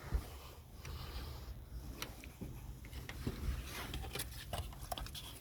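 Scattered rustling and small clicks and knocks of things being handled and moved about inside a derelict car's interior, over a low steady rumble.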